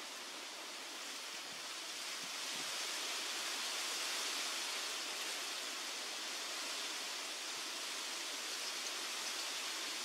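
Steady outdoor background hiss, even and unbroken, swelling a little a couple of seconds in.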